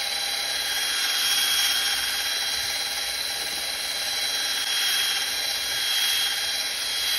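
Drill running steadily with a high whine, spinning a medium foam polishing pad with compound over the painted surface of a 3D-printed helmet.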